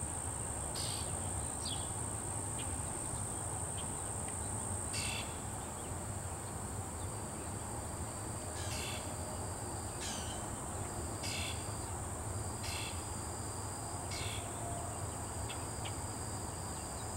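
Insects trilling steadily at a high pitch, with short chirps repeating about every second and a half in the second half, over a low background rumble.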